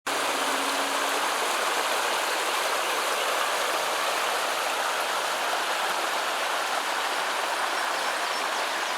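A creek swollen with floodwater rushing hard and fast: a steady, unbroken rushing noise.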